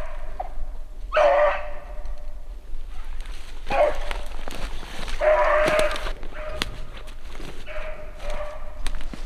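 Beagle puppy baying on a freshly jumped rabbit: a string of drawn-out howling yelps, one every second or two, with a few sharp snaps between.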